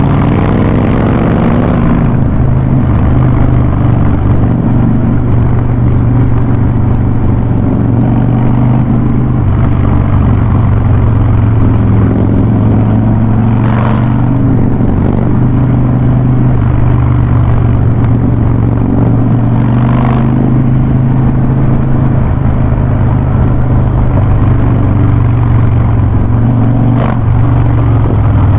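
Harley-Davidson Ultra Classic's V-twin engine heard through a Vance & Hines Big Radius exhaust, running loud and steady on the move, with a short shift in engine pitch in the first couple of seconds.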